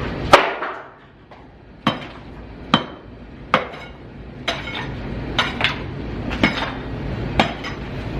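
A metal hand tool knocks sharply against hard material about once a second, roughly nine times, with a clinking ring. The first strike is the loudest.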